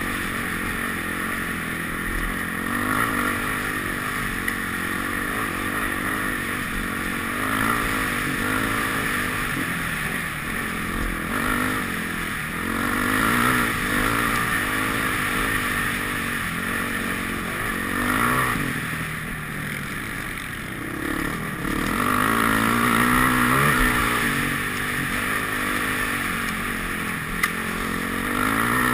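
Off-road dirt bike engine running under load, its pitch rising and falling with throttle and gear changes, heard from the rider's helmet. A short sharp knock near the end.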